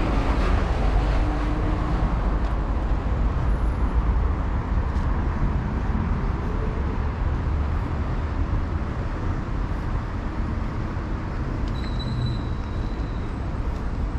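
Road traffic on a busy city avenue, a steady low rumble of passing vehicles, with a brief high whine about two-thirds of the way through.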